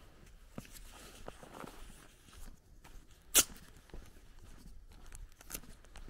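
Footsteps of someone walking over grass and onto a dirt road, soft crunching and rustling steps, with one sharp, loud snap a little over halfway through.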